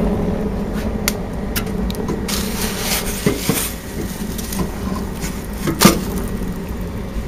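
Steady low hum of the wood gasifier boiler's induced-draft blower, with a few scattered sharp knocks and clicks; the loudest knock comes near the end.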